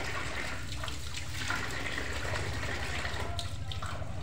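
Water pouring steadily from a tap into a full plastic tub, splashing on the surface, with a few small splashes mixed in.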